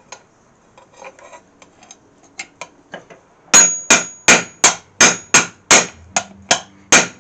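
Hammer striking a punch through a mild-steel hinge blank on the anvil to punch a hole. A few light taps come first; then from about halfway through there is a steady run of hard, ringing blows, about three a second.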